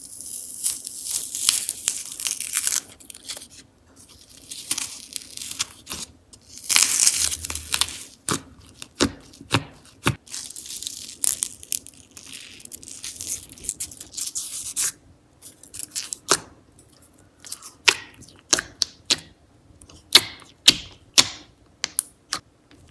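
Slime being stretched and squished by hand: stretches of crackling, tearing hiss, then many sharp sticky pops and clicks, coming thick and fast in the second half.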